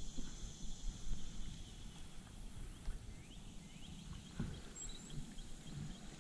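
Faint swamp ambience: insects buzzing steadily at a high pitch, fading after the first second or so. A few short rising chirps come about halfway through, over a low rumble on the microphone.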